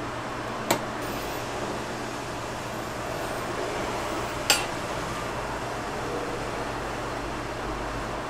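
Two sharp clinks of a slotted metal serving spoon against a topping dish, about four seconds apart, over a steady background hum.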